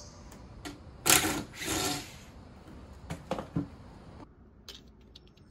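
Cordless drill-driver running in short bursts as it backs screws out of a wooden crate, followed by a few sharp clicks and knocks.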